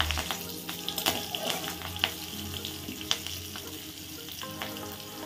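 Slit green chillies and black cumin seeds frying in hot mustard oil in a wok: a steady sizzle with scattered sharp pops and crackles.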